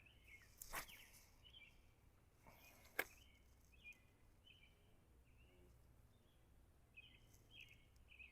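A spinning rod being cast: a short swish about a second in and a sharp click about three seconds in. These come over faint, repeated short bird chirps.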